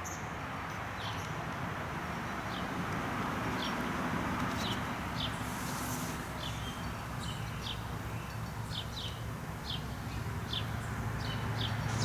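Birds chirping: a scattered series of short, high, downward-slurred chirps over a steady outdoor background hiss.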